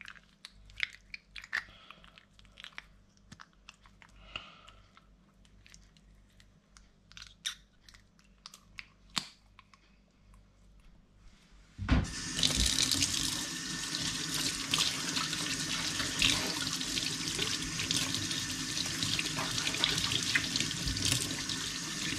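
Faint wet clicks and squelches of a cleaned squid tube being turned inside out by hand. Then, about twelve seconds in, a kitchen tap comes on and water runs steadily into the sink as the squid is rinsed.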